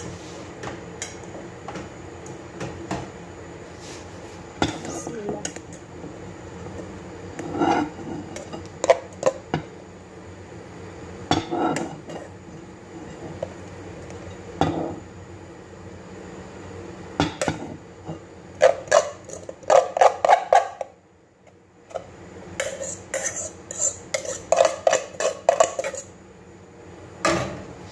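A metal cooking pot and utensil clinking, knocking and scraping while cooked rice is emptied from the pot into a glass bowl. The clinks come irregularly, in quick runs in the second half, with a short lull just past the middle.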